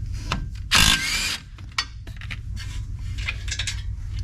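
Socket wrench working the front brake caliper bolts loose: scattered metal clicks and one loud burst of tool noise lasting about half a second, about a second in.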